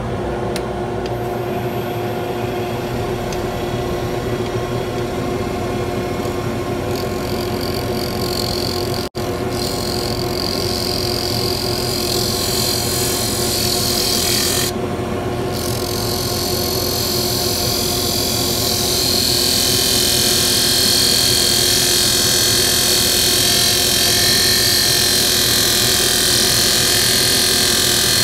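Mini wood lathe motor running at steady speed with a steady whine. A hiss builds about a quarter of the way in and grows louder past the halfway point as a tool works the spinning wood.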